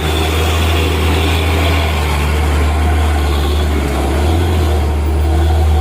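Steady low drone of a vehicle's engine and road noise while driving, with no horn sounding.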